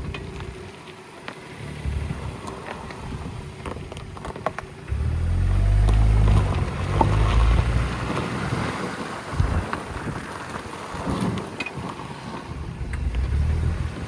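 Nissan Juke driving, with a low road and wind rumble that swells loudest about a third of the way in. A few short, sharp knocks come through it. The owner takes such knocks for a brake caliper knocking once the car is warmed up, especially when braking into turns.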